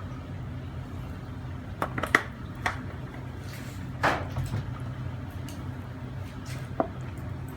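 A few light knocks and clinks of kitchen containers being handled while vegetable oil goes into the marinade bowl, over a steady low hum.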